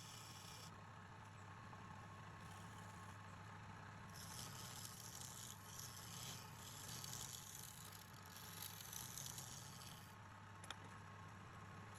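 Wood lathe running with a steady low hum. From about four seconds in until about ten seconds, a turning tool scrapes with a hiss against the spinning wood, and a single click comes near the end.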